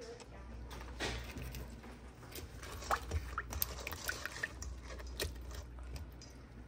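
Kitchen tongs clicking against a stainless steel bowl while fried chicken tenders are turned in a thin, oily honey sauce, with wet squishing and dripping. The clicks come irregularly, the sharpest about three seconds in.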